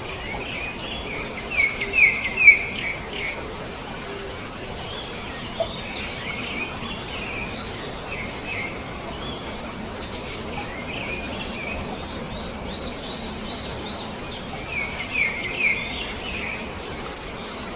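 Birds chirping and calling over a steady outdoor hiss. The loudest clusters of quick high chirps come about two seconds in and again near the end, with a run of repeated short notes about thirteen seconds in.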